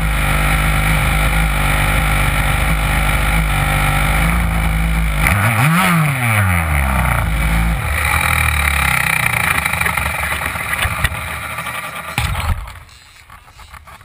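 HPI Baja 5B's small two-stroke petrol engine idling, heard close from the car's on-board camera, with one quick throttle blip about six seconds in that rises and falls in pitch. The engine cuts out shortly before the end, leaving faint handling noise.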